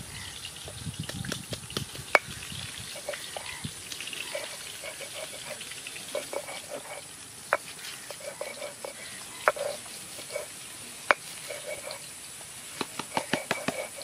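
A stone roller rubbed back and forth over a flat grinding stone by hand, crushing an ingredient with a gritty scraping, and a few sharp stone-on-stone knocks, with a quick run of knocks near the end.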